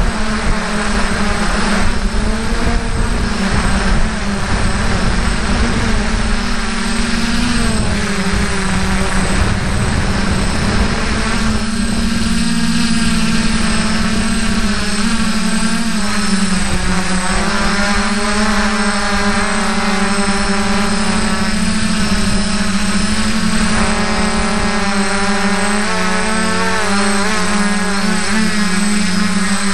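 F450 quadcopter's electric motors and propellers buzzing steadily in flight, the pitch drifting a little up and down as the motors speed up and slow.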